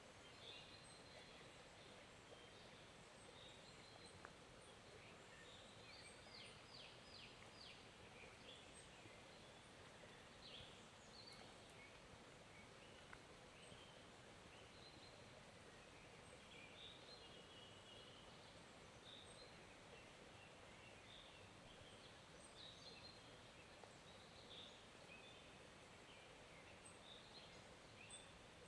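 Faint, steady flow of a small forest stream, with birds chirping in short calls on and off throughout.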